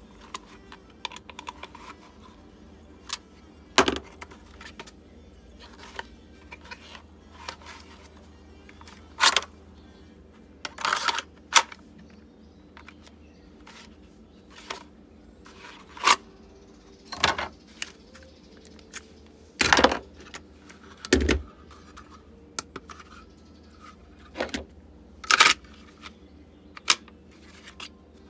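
Kydex holster and airsoft pistol being handled: irregular sharp plastic clicks and clacks, about a dozen louder ones scattered among lighter taps, as the retention screw is worked with a small tool and the pistol is pushed into and pulled out of the holster.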